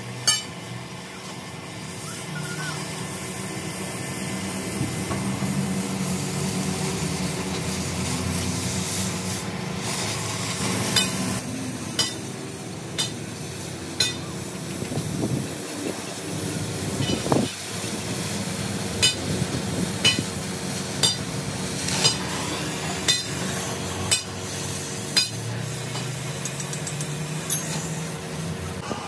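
Metalworking noise: a steady rasping hiss with sharp metallic knocks about once a second from a little before the middle on.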